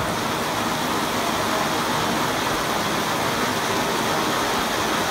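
A firework burning with a steady, dense hissing crackle that does not let up.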